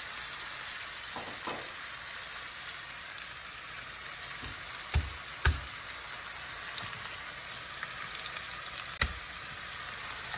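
Sous-vide ribeye steak sizzling steadily as it sears in very hot oil in a cast-iron skillet. Two dull knocks about half a second apart around the middle and another near the end.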